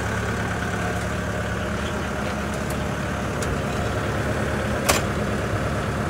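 Heavy diesel earthmoving machinery idling steadily, with a single sharp knock about five seconds in.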